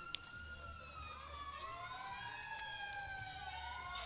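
Several emergency-vehicle sirens wailing at once, their tones slowly rising and falling out of step with each other, with a single sharp click just after the start.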